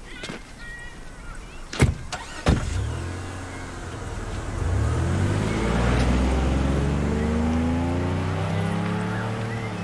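Minivan doors shut twice, about two seconds in, then its engine runs and rises in pitch as the minivan pulls away and accelerates.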